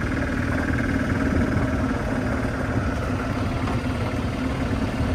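Golf cart driving along a gravel drive, its motor giving a steady hum over a low rumble.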